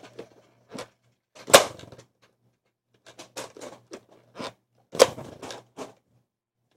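Plastic clicks and clacks of a Nerf blaster being worked by hand, with two louder knocks, about one and a half and five seconds in, and a run of small quick clicks between them. The blaster is not firing.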